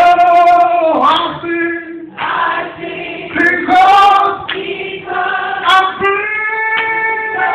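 Slow singing of a church song: long held notes that slide up and down, sung in phrases with short breaks between them.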